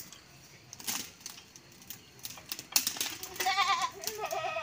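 Scattered clicks and clanks from the hand tractor's metal frame and wheels as it is manhandled down the slope. Near the end come two short quavering, bleat-like calls.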